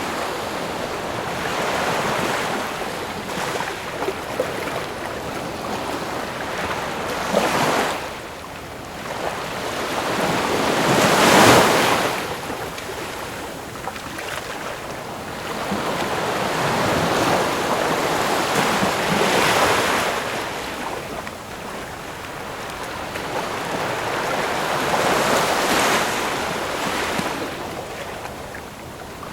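Ocean waves breaking and washing on a shore, the surf swelling and ebbing every several seconds; the loudest break comes about eleven seconds in.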